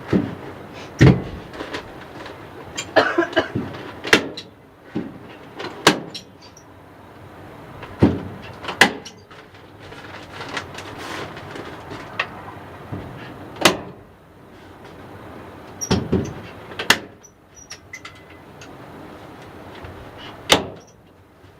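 Sharp knocks and snaps, about a dozen at uneven intervals, with the rustle of insulation paper being handled between them as insulation is fitted inside a wooden coop.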